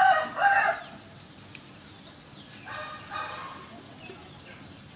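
A rooster crowing, its high call ending within the first second, followed by a fainter second call about three seconds in.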